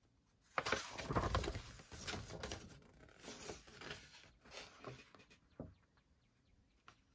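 Paper rustling and crinkling as a folded cassette lyric-sheet insert is unfolded and handled, in uneven bursts starting about half a second in and dying away after about five seconds into a few faint ticks.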